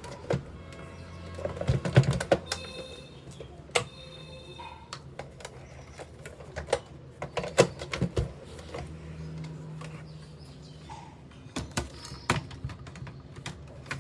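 Irregular clicks and knocks of hands and tools working on a National Panasonic RX-1490T radio cassette recorder as it is taken apart for service, a few louder knocks among lighter ticks.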